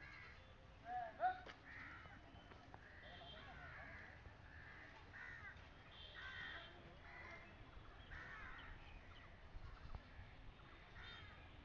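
Faint bird calls repeating throughout, with a louder short cry about a second in.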